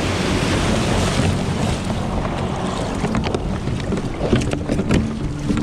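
A breaking wave's whitewash rushing past the bow of a plastic sit-on-top kayak, with wind buffeting the microphone. From about three seconds in, scattered knocks and clicks sound on the kayak's hull and deck as the surf eases.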